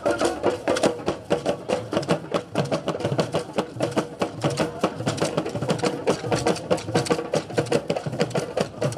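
Traditional Nigerian drum ensemble of barrel-shaped hand drums playing a fast, driving rhythm, strokes coming several times a second without a break.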